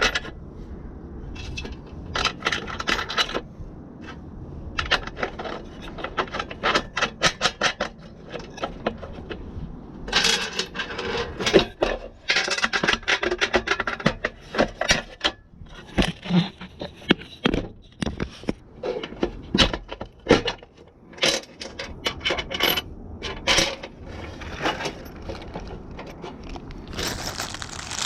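Metal hand tools and parts clinking and scraping in quick repeated strokes. The strokes come in runs, several a second, broken by short pauses.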